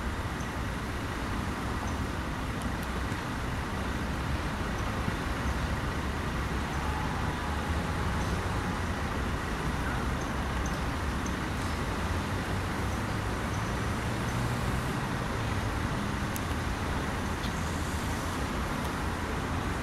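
Steady rumble and hiss of road traffic, with no distinct events standing out.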